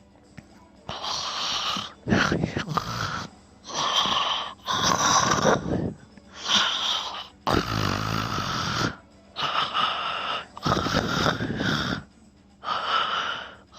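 A sleeping person's loud, wheezy breathing, each in-breath followed straight away by an out-breath, repeating about every two and a half to three seconds.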